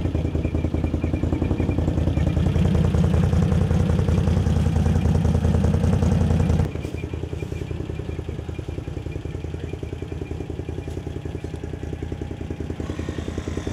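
Portable air compressor running with a rapid, even pulsing, pumping air into a flat ATV tire to re-seat it on the rim. The sound drops suddenly to a lower level about seven seconds in and carries on.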